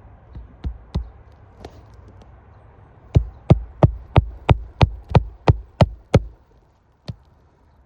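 Hammer driving roofing nails into a replacement asphalt shingle: a few light taps, then a run of ten sharp blows at about three a second, and a last single blow near the end.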